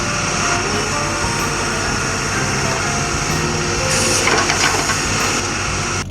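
Cartoon sound effect of a heavy vehicle engine running steadily, with a louder hissing rattle about four seconds in. It cuts off abruptly at the end.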